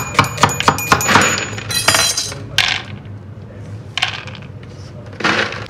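Kitchen utensils and dishes clinking: a quick run of sharp clinks in the first second, then several short scraping or hissing sounds.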